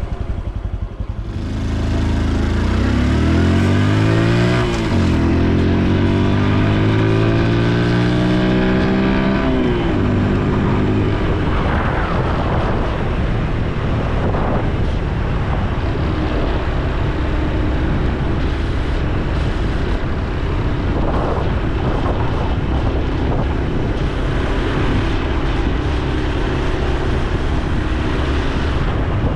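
Honda Super Cub C125's single-cylinder four-stroke engine pulling away, its exhaust note rising in pitch and dropping back at gear changes about four and nine seconds in. Then it runs at a steady cruise with wind and road noise.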